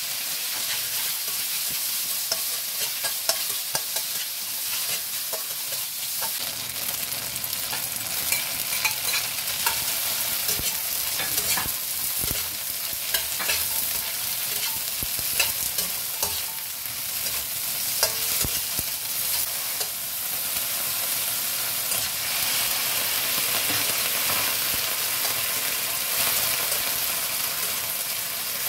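Tofu strips and green beans stir-frying in a stainless steel wok: a steady sizzle of hot oil with the irregular scrape and clack of a spatula against the pan as the food is turned.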